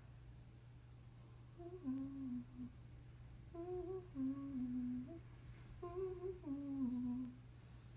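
A woman humming a short tune in three phrases, each stepping down in pitch, over a steady low background hum.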